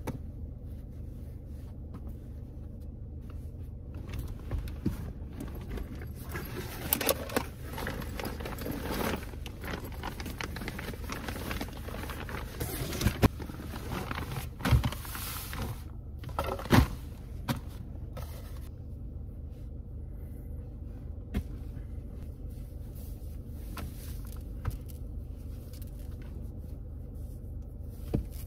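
Clothing rustling and shuffling as a person changes clothes in a car seat, pulling a hoodie off and handling garments, with a few sharp clicks and knocks, busiest in the middle. A steady low hum runs underneath.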